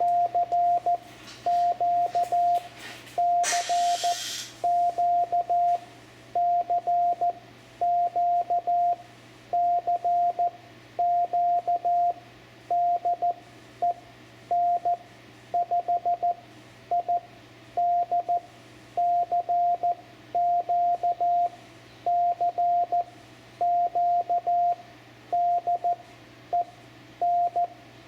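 Morse code CW tone from a Yaesu FT-710 transceiver sending a recorded CQ call from its memory keyer. A single steady pitch is keyed on and off in dots and dashes at an even, unhurried pace, in character groups with short gaps between them.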